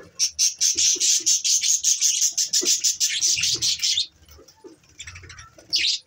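A flock of budgerigars chattering: a fast, dense run of high chirps for about four seconds, then sparser, quieter calls, and a short loud call near the end.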